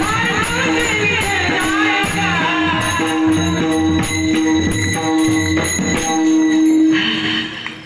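Marathi kirtan music: a voice singing over small brass hand cymbals (taal) clashing on a steady beat and a mridang drum, with sustained tones behind. The music stops about seven seconds in.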